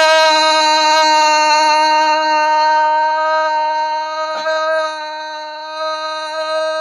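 A young man's long, sustained yell held on one steady pitch, slowly fading over its course.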